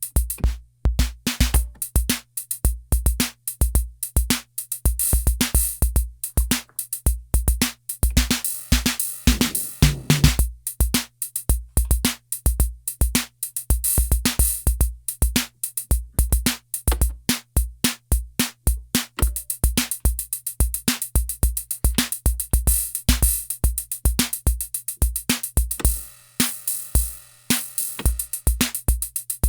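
Korg KR-55 analog rhythm machine playing its drum patterns dry, with no effects: repeating bass drum, snare and hi-hat/cymbal hits, the pattern changing a few times. A steady low hum sits underneath.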